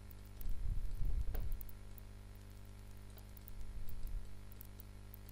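Scattered faint clicks of a computer mouse and keyboard over a steady low electrical hum. Low, muffled bumps come in the first second or so and again around four seconds in.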